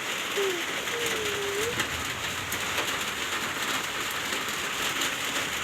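Steady pattering hiss of falling water, with a faint drawn-out wavering tone under it for about a second early in.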